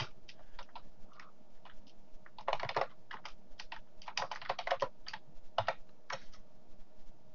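Typing on a computer keyboard: short runs of quick keystrokes with pauses between them.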